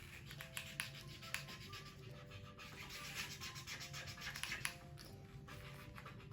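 Quiet background music with a simple stepping melody, over soft rubbing and scratching handling noise with a few sharp clicks.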